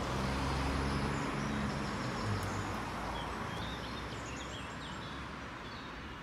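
Road traffic noise slowly fading away, with small birds chirping repeatedly from about three seconds in.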